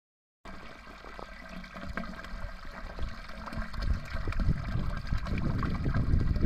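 Water gurgling and splashing inside a steel borewell casing around a corrugated hose lowered into it, growing steadily louder.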